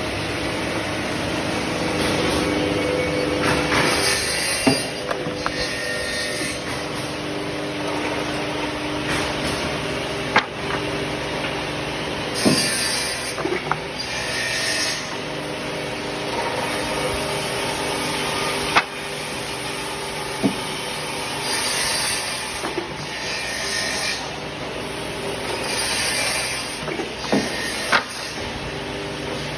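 Automatic double-end cutoff saw for pallet slats running, its saw motors humming steadily while wood slats are cut. Short bursts of cutting noise come every few seconds, with occasional sharp knocks of wood.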